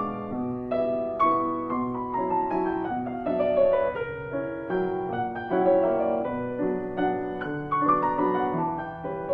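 Background piano music: a slow, gentle run of single notes over held chords, with a melody that steps downward about two to four seconds in.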